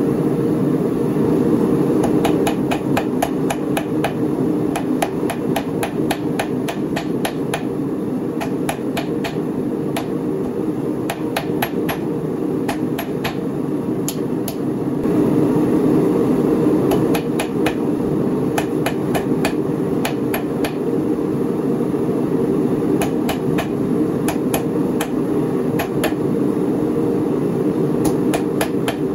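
Hand hammer striking a red-hot W1 steel rod held in tongs on a steel anvil while forging it, the blows coming in runs of about three a second with a short pause about midway. A steady low hum runs underneath.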